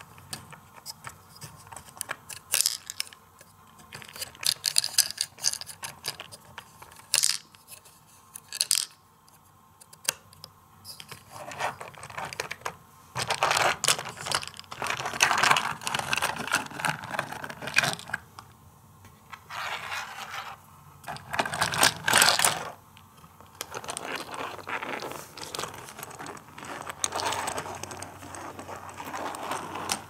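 Hands handling plastic toy trucks and track pieces: irregular clicks, knocks and scrapes, with small balls rattling in a tipping toy dump-truck bed, busiest about halfway through.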